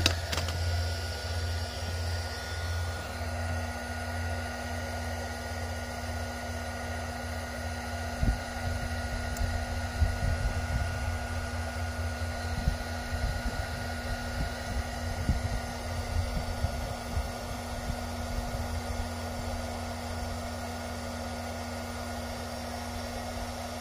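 Bauer 20V cordless heat gun running with a steady fan whir and a faint steady tone, blowing hot air through its concentrator nozzle onto a solder heat-shrink connector to shrink its plastic sleeve ends. Irregular low thumps and rumbles join in from about eight seconds in.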